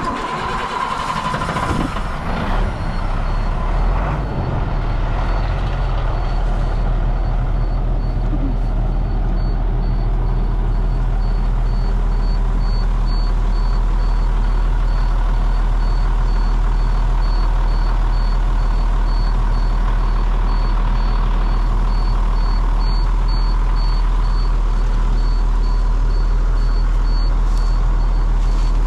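A vehicle engine starting up and settling into a steady idle. A high-pitched warning beep pulses rapidly from about three seconds in.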